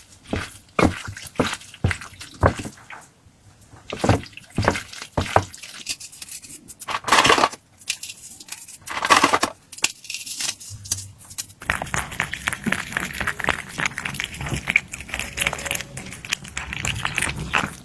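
Food being handled in preparation: a string of separate knocks and wet squishes. About two-thirds of the way through it changes suddenly to a dense, continuous crackling squish.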